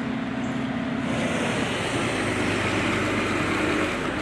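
Concrete mixer truck's diesel engine running steadily, growing louder and rougher about a second in.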